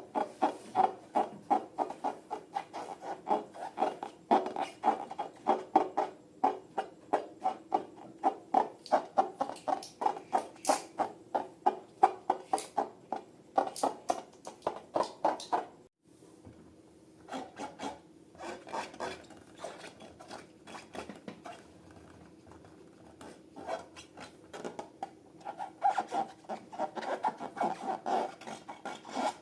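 Slime being worked by hand, a fast run of short wet rubbing strokes, several a second. It breaks off briefly about halfway through, resumes more quietly, and grows louder again near the end.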